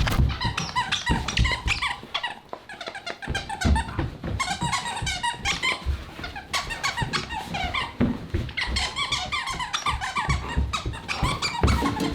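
A dog chewing a rubber squeaky toy over and over, rapid high squeaks in quick runs with short pauses, mixed with low thuds.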